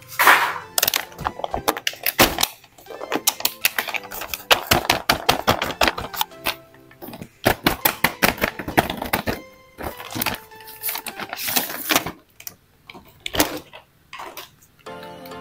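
Hard plastic action figures clacking against each other and a plastic blister pack crinkling as they are handled: a dense, irregular run of sharp clicks and rattles, with a short pause about twelve seconds in. Background music plays underneath.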